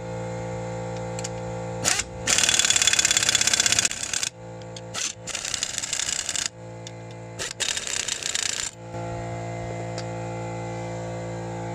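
Impact wrench hammering wheel-spacer lug nuts down onto the studs, in several bursts. The longest and loudest comes about two seconds in and lasts a second and a half; shorter, quieter bursts follow around five and eight seconds in. A steady hum runs underneath.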